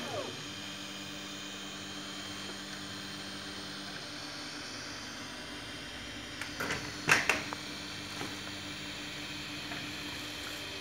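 Desktop 3D printer's cooling fans running with a steady hum, with a brief rising and falling stepper-motor whine at the start. A short cluster of sharp clicks and knocks comes about seven seconds in.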